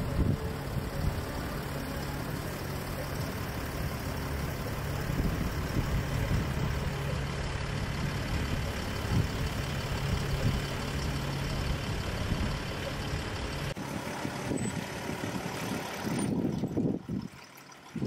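An engine running steadily at idle, a low hum under a wash of noise. About fourteen seconds in the hum stops; after a short louder spell the sound drops away near the end.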